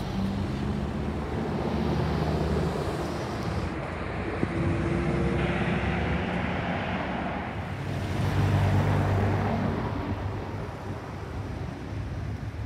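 Slow-moving traffic passing close by: the engines of cars and a coach running at low speed over tyre and road noise. The sound swells about two seconds in and again around eight seconds, then fades.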